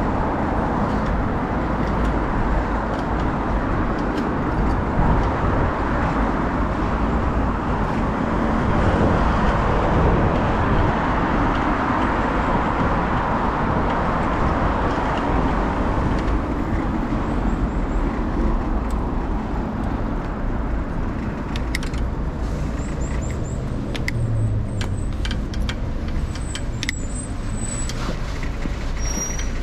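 Road traffic on a city street: a steady wash of car tyre and engine noise, swelling for a few seconds about ten seconds in as traffic passes close, with a few sharp clicks near the end.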